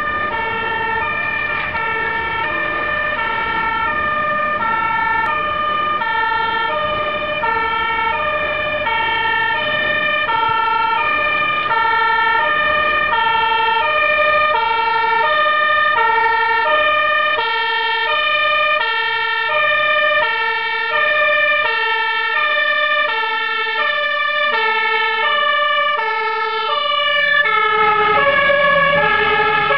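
Dutch fire engine's two-tone siren alternating between a high and a low note, growing louder as it approaches. Near the end the pitch drops as the truck passes close by, and its engine is heard.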